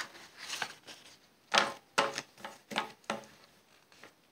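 Sheets of paper being picked up and handled: a run of short rustles and taps, the loudest a little after one and a half seconds and at two seconds in.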